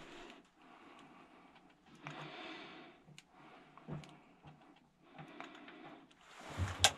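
Faint handling noise from a handheld compact camera: soft rustles and a few small clicks, with one short, sharp sound near the end.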